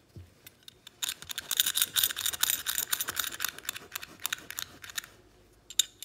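A cloth rubbing cleanser paste off a metal belt buckle: a rapid scratchy scrubbing that starts about a second in and dies away after about three seconds, then a couple of sharp clicks near the end.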